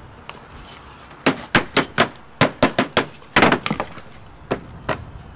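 Hand tools working lead sheet flashing at a chimney: a quick, irregular run of sharp taps and knocks, bunched from about a second in to four seconds in, then two more spaced out near the end.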